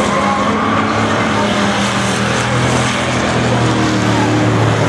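Several banger racing cars' engines running on a short oval, with steady engine tones that slowly rise and fall over constant noise.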